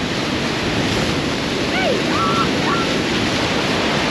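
Steady rushing noise of Niagara's Horseshoe Falls heard up close, with wind buffeting the microphone. A few short voice cries rise over it about two seconds in.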